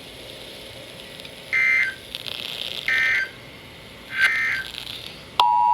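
Emergency Alert System SAME header: three short bursts of warbling digital data tones, about 1.3 s apart. Near the end the steady two-tone EAS attention signal (853 and 960 Hz) begins. Together they signal that a severe thunderstorm warning is about to be read.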